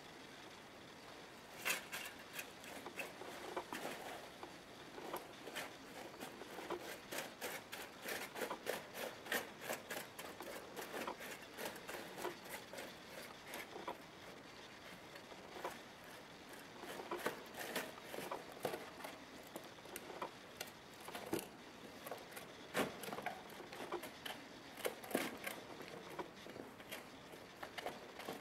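Irregular rustling and crackling of dry straw and cardboard, with many small clicks and taps, some louder than the rest.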